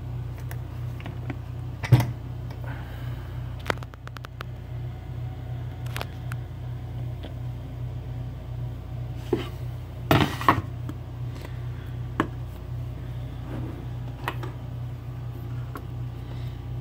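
Scattered metallic clicks and knocks as a Schlage Everest key-in-knob lock cylinder and small tools are handled while it is taken apart after picking, over a steady low hum. The loudest knock comes about two seconds in, a short run of rapid ticks follows around four seconds, and a cluster of knocks comes about ten seconds in.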